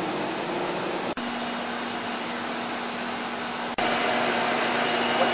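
Steady machinery roar in a gas-turbine warship's engineering space underway: a constant rushing noise with a steady low hum under it, broken by two very brief dropouts, about a second in and near four seconds.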